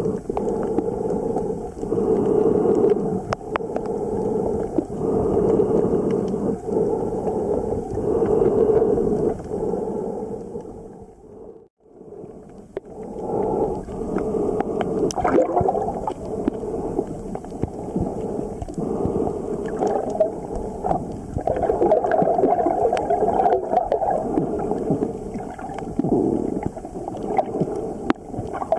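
Muffled noise of water moving around a microphone held underwater, with gurgling and sloshing that swells and fades in uneven pulses. It fades out briefly about twelve seconds in, then returns.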